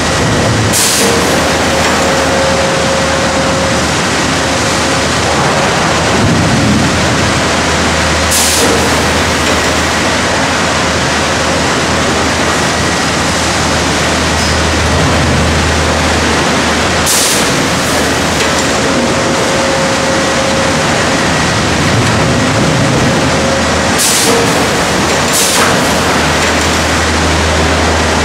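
Sawmill log-handling machinery running, loud and steady, with a low hum under it. A sharp clank comes about every eight seconds, with two close together near the end, as logs are moved along the lugged chain conveyor.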